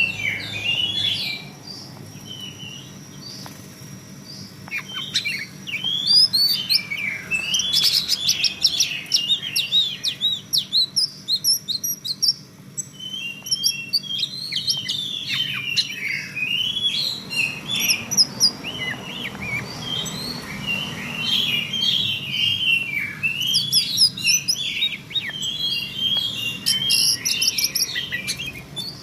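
Female oriental magpie-robin giving 'cretekan' calls: rapid runs of short, sharp chirps and quick up-and-down whistles, in bursts with brief pauses between them.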